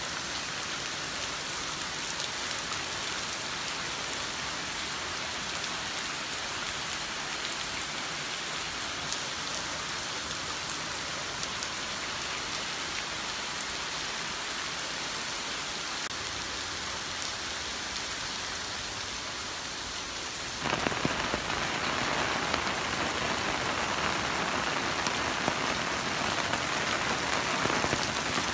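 Heavy typhoon rain pouring steadily. About two-thirds of the way through it jumps suddenly louder and hissier.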